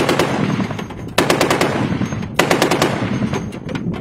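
M2 Browning .50 cal heavy machine gun firing full-auto in short bursts, each a string of heavy shots lasting about half a second. One burst ends just as the sound opens, the next starts about a second in and another about two and a half seconds in. Each burst is followed by a rolling echo.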